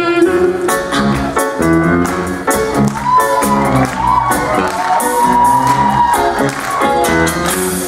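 Live band playing an instrumental passage of a pop song between sung lines, with a steady drum beat under a held melody line.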